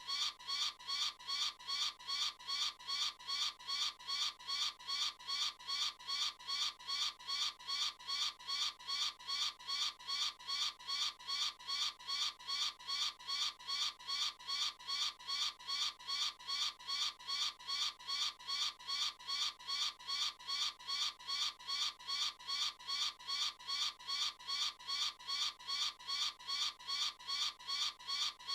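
Eagle call sound effect: a short, high call repeated in an unvarying loop about two and a half times a second.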